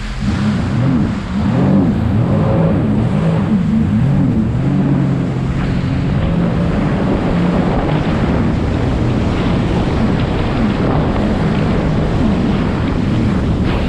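Motorboat under way at speed: the engine's note wavers up and down over the rush of water against the hull, with wind buffeting the microphone.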